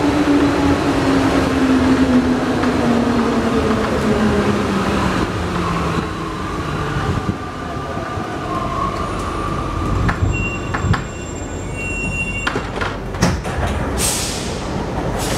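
Alstom NS-93 metro train braking into a station, heard from inside the car: the traction motor whine falls steadily in pitch as the train slows. Near the end come clicks, a brief high steady tone, and a short burst of hiss about a second before the stop.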